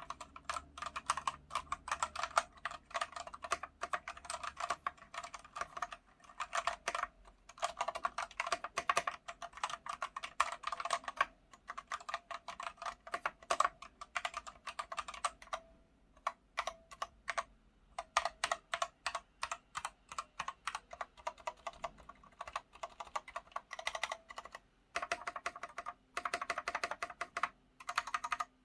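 Typing on an Aqirys Alumdra TKL mechanical keyboard with Gateron switches: fast runs of key clacks, broken every few seconds by short pauses.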